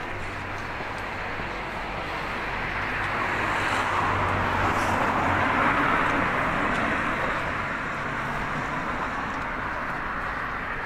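A car driving past on the street, its noise growing louder to a peak about five seconds in and then fading away.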